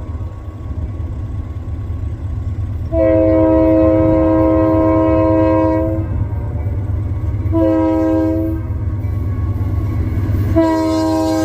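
Union Pacific locomotive horn sounding a long blast about three seconds in, a short blast near eight seconds, and another long blast starting near the end, over the steady low rumble of the train. Long, short, long is the close of the grade-crossing horn signal.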